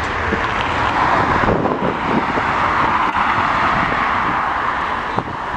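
Jet airliner engines, a steady rushing noise that swells slightly and eases again.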